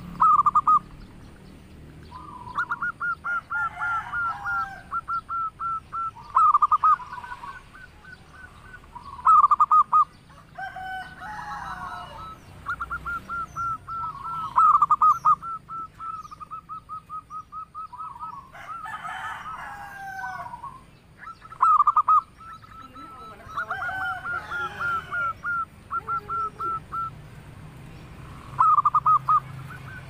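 Zebra dove (perkutut) singing: runs of quick, evenly spaced staccato coos, each run opened by a few louder notes, about six times over. Four times, rougher, harsher calls from another bird break in between the runs.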